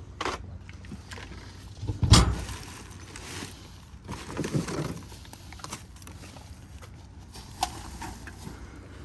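Rummaging through trash in a dumpster: a loud thump about two seconds in, a few lighter knocks, and a stretch of rustling around the middle.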